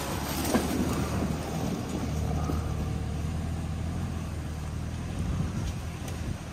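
Toyota 4Runner TRD Pro's engine running with a steady low hum as it drives off along a leaf-covered dirt trail, with the rumble and crackle of tyres on dirt and leaves.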